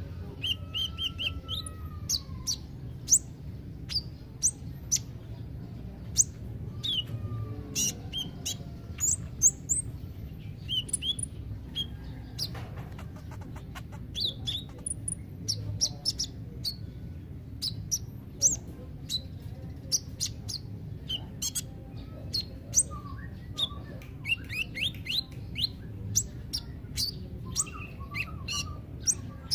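Copper-throated sunbird (kolibri ninja) calling: a long run of short, sharp, high chirps and quick twitters, irregularly spaced and some in brief rapid bursts.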